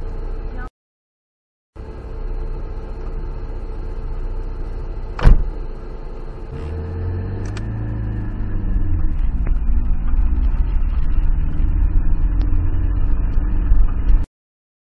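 Car engine running, heard from inside the cabin, its pitch shifting and its sound growing louder in the second half as the car pulls up a steep dirt road. A single sharp knock about five seconds in is the loudest moment. The sound drops out for about a second near the start and cuts off just before the end.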